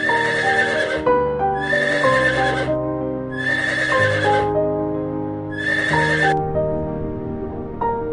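An animal calling four times, each call a harsh cry of about a second, over gentle piano background music.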